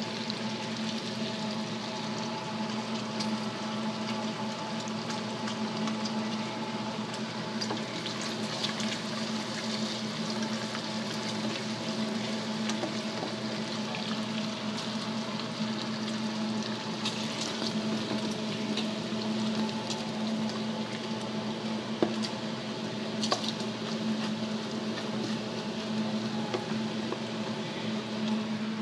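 Chopped bacon sizzling steadily in its own rendered fat in a frying pan, with a steady low hum underneath. Two sharp knocks about two-thirds of the way through.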